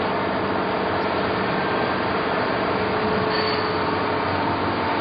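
Straight knife blade grinder running, a steady mechanical noise from its grinding-head motor and cup wheel that holds an even level throughout.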